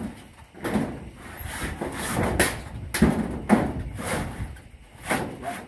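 Irregular knocks and bangs, about eight of them, as corrugated zinc roofing sheets are fitted onto the wooden rafters of a veranda roof.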